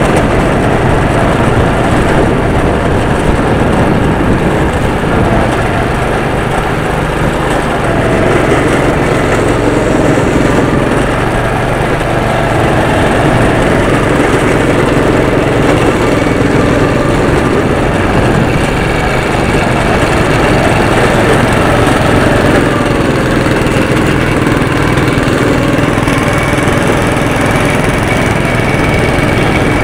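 Go-kart's small engine running steadily and loudly as the kart drives around the track.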